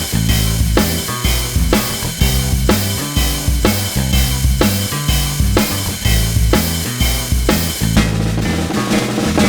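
Background music with a steady drum-kit beat of bass and snare drum, about two beats a second.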